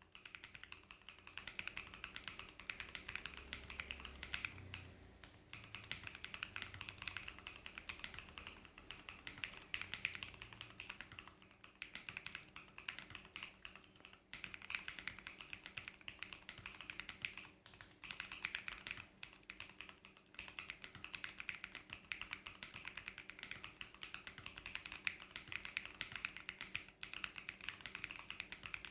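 Fast, continuous typing on a Noir OLV75 mechanical keyboard with PBT keycaps: a dense run of key clacks, broken by a few short pauses.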